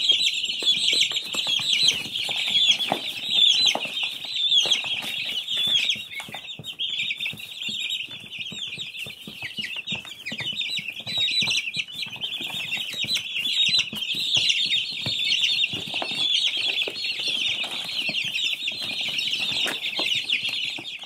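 A crowd of baby chicks peeping nonstop, many high chirps overlapping into one continuous din, with small clicks and knocks underneath.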